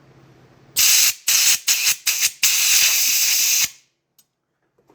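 A pressurised spray hissing into a stuck roller lifter from a 5.2/5.9 Magnum engine, to free a plunger that won't come up. It comes as about five short blasts and then one longer one of over a second.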